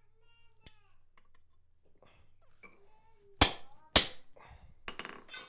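Two sharp hammer blows about half a second apart on a steel punch held on a steel backplate over a bolster, each a loud ringing metal strike, driving a rectangular hole for the handle's lugs. Light handling and scraping of metal before and after.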